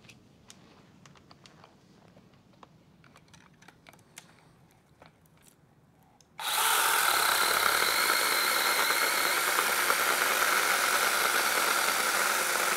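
Cordless brushless mini chainsaw with a 6-inch bar switching on abruptly about halfway through and running steadily as it cuts through an overhead tree branch. Before it starts there are only a few faint clicks and taps of handling.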